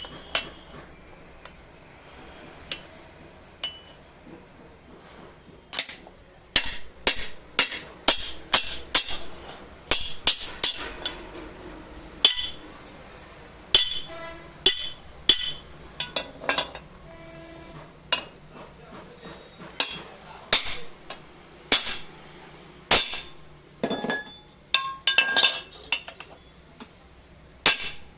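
Irregular sharp metallic clinks and taps, metal striking metal, some ringing briefly, coming in uneven clusters after a quieter first few seconds.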